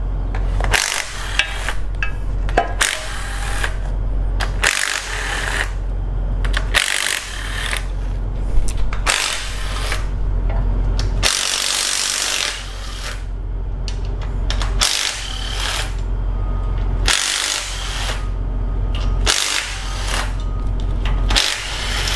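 A handheld power tool with a socket spinning out the camshaft bearing cap bolts on a 2.4 Multiair engine, in about a dozen short runs of a second or less each with brief pauses between.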